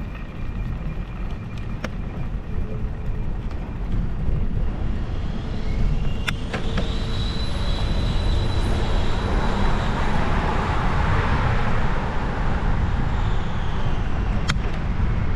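Traffic noise heard from a moving bicycle, over a constant low rumble. Something passes, swelling louder through the middle, with a steady high whine held for several seconds. Two sharp clicks, one about six seconds in and one near the end.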